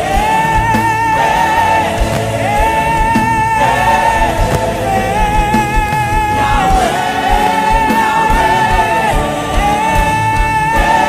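Gospel worship music: a singer holds long, gliding notes over a band with a steady beat.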